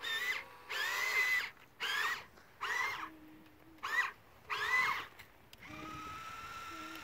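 Small electric motors of a radio-controlled toy Bobcat tracked loader whining in about six short bursts, each rising and falling in pitch, as it is driven in quick stop-start moves. A fainter steady whine follows near the end.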